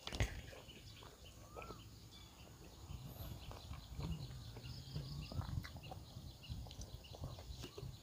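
Close-up eating sounds: someone chewing and handling food with their fingers, with soft wet smacks and small clicks. Two brief bird chirps, one early and one in the middle.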